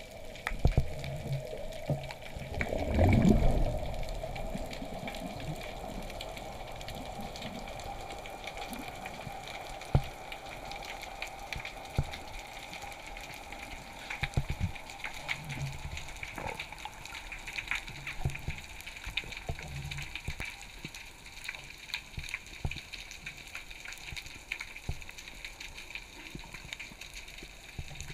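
Water noise picked up by a diver's camera during spearfishing: a steady hiss with many scattered sharp clicks, and a louder rush of water lasting about a second, about three seconds in.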